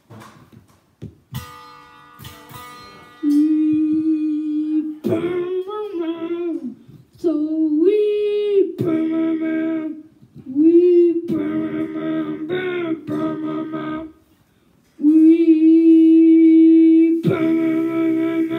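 A boy's voice humming and singing a wordless tune in long held, sliding notes. A few plucked string notes ring out near the start.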